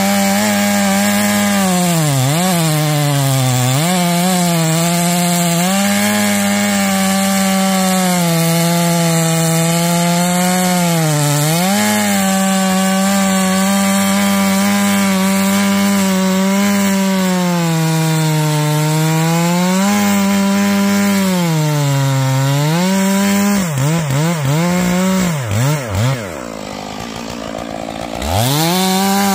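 Stihl MS461 two-stroke chainsaw held at full throttle cutting green fir, its steady high engine note dipping briefly now and then as the chain takes load. Near the end the throttle is let off and the saw drops to idle for about two seconds, then revs straight back up.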